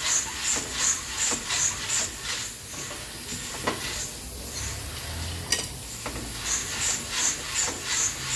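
Coffee beans tumbling in a hand-turned drum roaster over a wood-fired stove, with a rhythmic swish about two and a half times a second as the drum turns. The turning stops for about four seconds, leaving a steady hiss and one sharp click, then starts again near the end.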